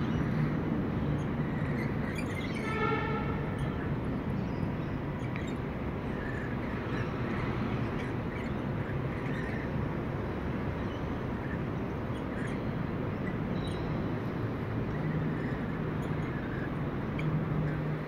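Steady street background noise with traffic. A brief pitched tone sounds about three seconds in.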